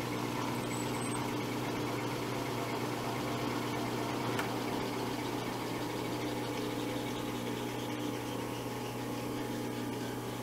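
Milling machine running in back gear, its spindle slowly turning a long extended tap into a drilled hole: a steady motor hum, with one faint click about four seconds in.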